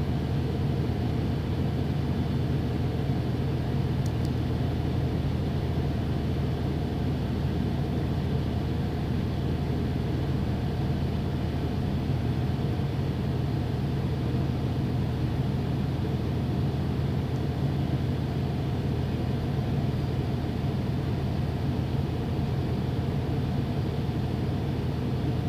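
Steady low rumble of a vehicle's cabin noise, even and unchanging throughout.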